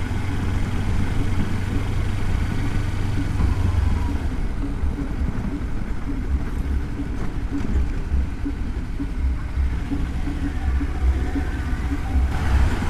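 Kawasaki Versys-X 300's parallel-twin engine running with a deep wind and road rumble, heard through a helmet-mounted microphone. The sound thins out about four seconds in and grows fuller again near the end.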